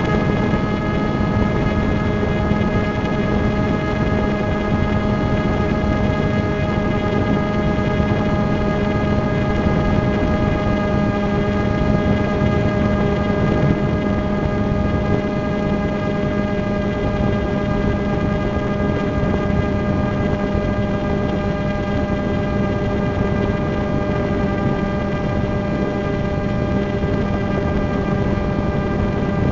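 Small multirotor drone's motors and propellers humming steadily at one constant pitch, with a rushing noise underneath, heard from the camera carried on the drone.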